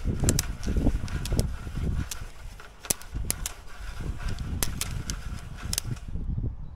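Sewer inspection camera's push-rod cable being fed off its reel and down the drain pipe: a run of sharp, irregular clicks and ticks over a low handling rumble, stopping about six seconds in as the push stops.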